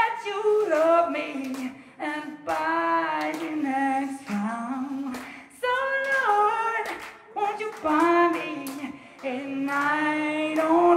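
A woman singing solo into a microphone, unaccompanied, in sustained phrases of a second or two broken by short breaths.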